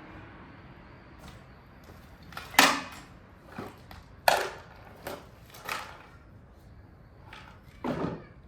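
Five sharp plastic clicks and clacks, a second or so apart, from the engine bay's plastic oil-filter cover and oil filler cap being unclipped and handled by hand.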